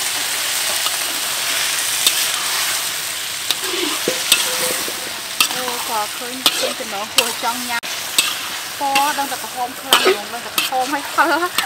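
Whole button mushrooms sizzling in hot chili oil in a metal wok, with a steady frying hiss. From about four seconds in, a metal spatula stirs them, clicking and scraping against the wok with short squeaks.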